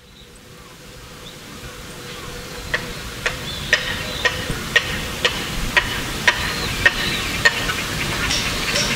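Outdoor ambience fading in: a low, even rumble with a faint steady hum. From about three seconds in, a short high chirp repeats about twice a second.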